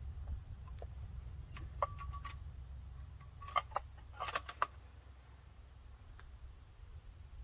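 Rifle being handled between shots: two short clusters of sharp metallic clicks and clacks, about two seconds in and again around four seconds in, over a low steady rumble.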